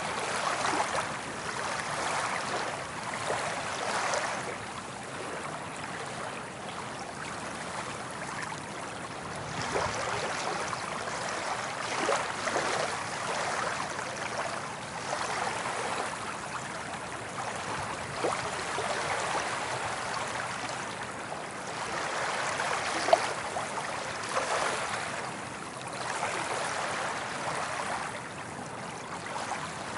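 Soft ocean waves washing up on a beach, a steady hiss of surf and foam that swells and eases every few seconds. One brief sharp sound stands out about two-thirds of the way through.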